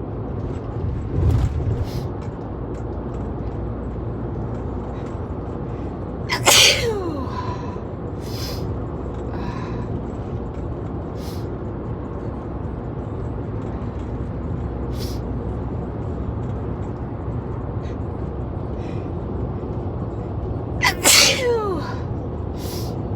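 A person sneezing twice, about six seconds in and again near the end. Each sneeze is a loud, short burst whose pitch falls sharply. Under them runs the steady low rumble of a car in motion, heard from inside the cabin.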